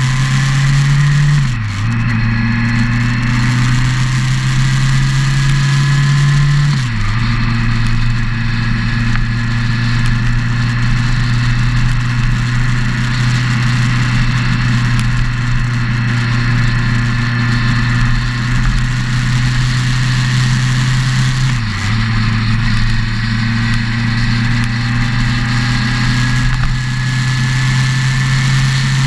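Motorcycle engine running under load as the bike rides along the road, its note dropping sharply at three gear changes: about a second and a half in, about seven seconds in, and near twenty-two seconds. Steady road and wind noise runs underneath.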